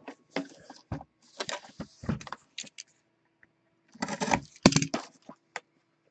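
Plastic shrink-wrap on a cardboard hobby box of 2018-19 Upper Deck Premier hockey cards being handled, slit and torn open. It makes short crackling and scraping sounds in two clusters, with a pause in between.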